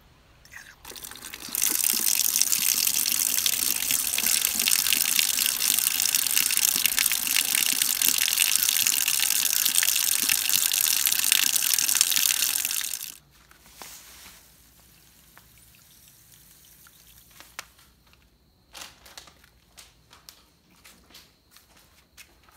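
Water pouring steadily into a plastic bucket over rusty metal speaker driver parts. The pouring stops abruptly about 13 seconds in, and a few light ticks and taps follow near the end.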